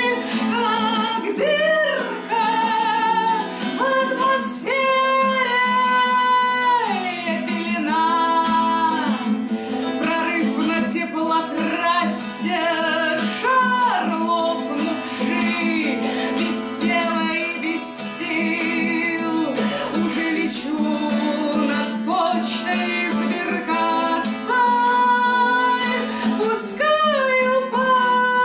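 A woman singing, accompanying herself on a twelve-string acoustic guitar.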